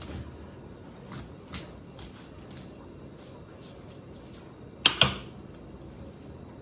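Filleting knife scraping and clicking along the bones of a large raw fish on a plastic cutting board, in a string of short sharp ticks. About five seconds in comes a much louder sharp double click.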